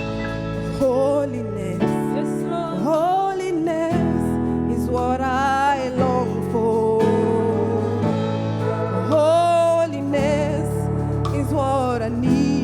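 Live gospel worship music: a singer's voice gliding and holding notes with vibrato over sustained keyboard-and-band chords that change every couple of seconds.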